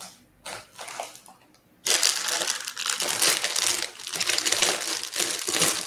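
Crinkling, rustling noise close to a microphone that starts suddenly about two seconds in and keeps going, dense with fine crackles.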